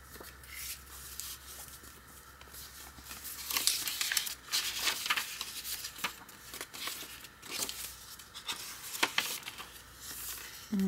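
Paper rustling as the pages of a thick handmade journal are leafed through by hand: irregular crisp rustles and flaps of paper and card, picking up about a third of the way in.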